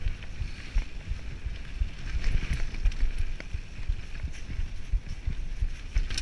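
Mountain bike riding down a rocky gravel trail: tyres rumbling and crunching over loose stones, with scattered clicks and rattles from the bike and wind buffeting the microphone.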